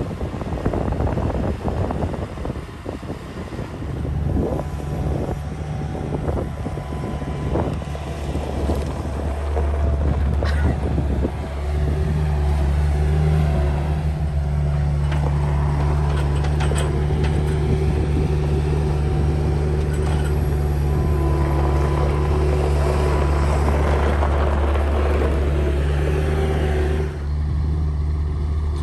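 Bobcat skid-steer loader's diesel engine running steadily, growing louder about twelve seconds in. Wind buffets the microphone for the first few seconds.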